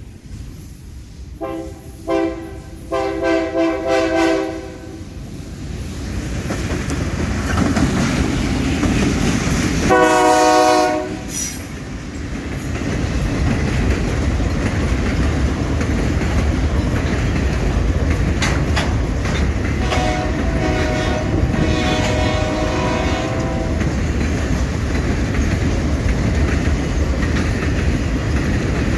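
Freight train's locomotive horn sounding a chord in repeated blasts, two short and a long one near the start, a loud long blast about ten seconds in and more blasts later, as a warning to horses on the track. Under the horn, the diesel locomotives' rumble and the wagons' wheels clattering over the rail joints build up and keep going as the train passes.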